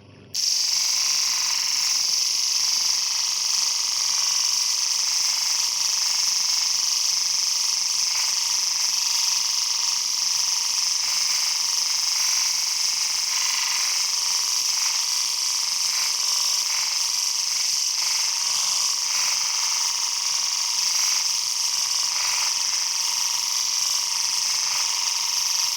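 Homemade motor-driven sanding machine running and grinding a workpiece. It starts abruptly just after the start and keeps up a steady, high-pitched abrasive hiss and whine.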